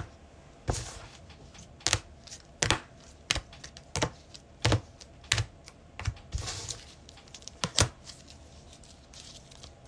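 A series of sharp, light clicks and taps at uneven gaps of about half a second to a second, like small hard objects being handled or keys pressed on a desk.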